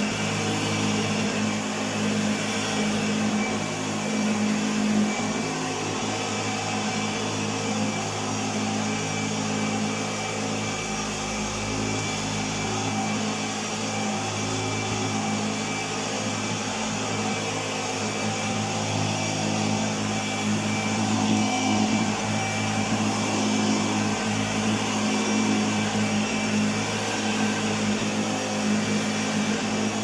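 1975 Hoover Starlight U2002 upright vacuum cleaner running steadily as it is pushed back and forth over carpet: a steady motor hum with a thin high whine above it.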